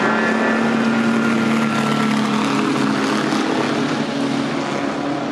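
Engines of pre-1935 Grand Prix racing cars running as the cars drive past, a steady engine note that eases off slightly near the end.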